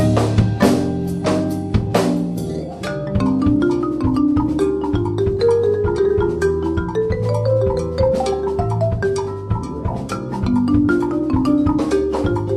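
Jazz band playing a Latin-style piece: drums and percussion under a line of quick, short melodic notes that run up and down.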